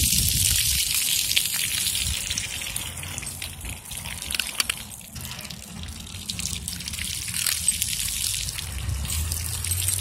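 Splash-pad fountain jets spraying up from ground nozzles and spattering on wet pavement: a steady hiss of water, louder at first and fainter from about three seconds in.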